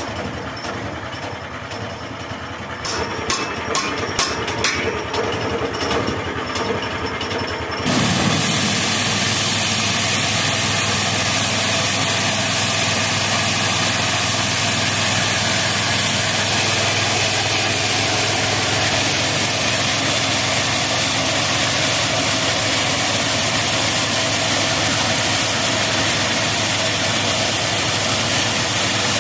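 Homemade bandsaw mill's 16 HP engine running at low speed with a few sharp knocks, then about eight seconds in it suddenly speeds up and the saw runs loud and steady at full power.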